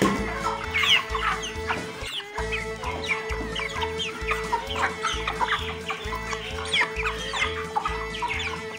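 Broiler chickens calling with many short falling peeps while feeding, over background music with a steady bass beat that stops briefly about two seconds in.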